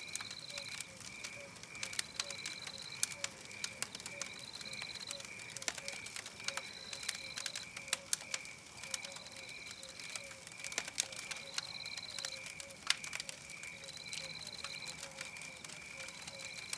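Campfire crackling with frequent sharp pops, over a steady backdrop of rhythmic night-forest chirps: evenly spaced pulses at two pitches and a higher trill that repeats about once a second.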